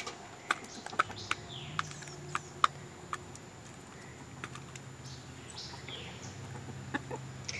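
Chicken pecking scrambled egg and crushed eggshells from a plastic tub: sharp, irregular taps of the beak against the tub and the shells, most of them in the first three seconds. Faint bird chirps are heard now and then.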